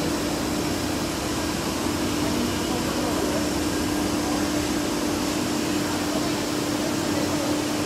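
Steady whir of running workshop machinery, with a constant hum held unchanged throughout.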